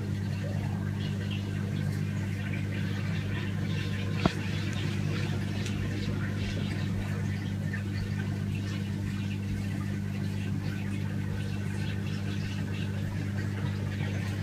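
Steady low electrical hum of an aquarium pump running, with faint scattered water ticks and a single sharp click about four seconds in.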